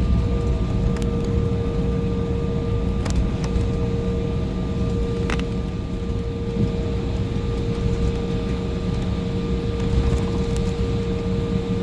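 Jet airliner cabin noise while taxiing after landing: a steady low rumble of engines and airflow with a steady hum running through it, and a few faint clicks and rattles.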